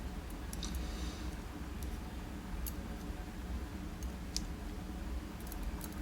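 Scattered light clicks and taps of small metal lock parts being handled while a dimple lock cylinder is taken apart, over a steady low hum.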